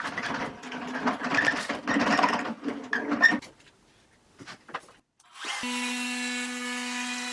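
A trim router flush-trims veneer along a panel edge for about three seconds, a rough, clicky cutting noise, then stops. After a short pause the motor starts again about five and a half seconds in and runs free with a steady whine.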